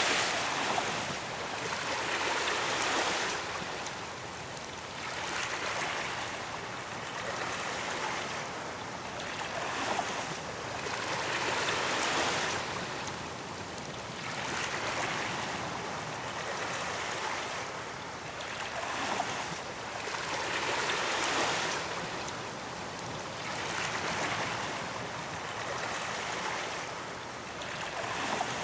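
Sea waves breaking on a beach: a continuous wash of surf that swells and recedes in repeated surges every few seconds.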